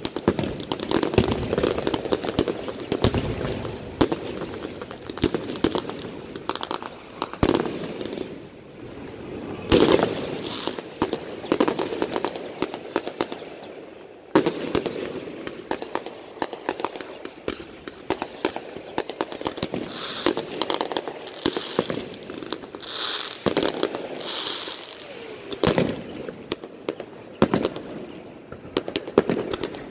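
Fireworks display: a rapid, continuous run of bursting aerial shells and crackling, with a few louder bangs standing out.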